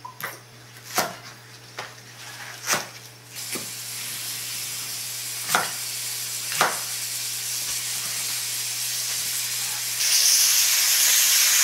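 A knife chopping green onions on a wooden cutting board, several sharp single chops. Pork frying in oil in a wok begins sizzling about three seconds in, with two more chops over it, and the sizzle grows louder about ten seconds in once the green onions are in the wok.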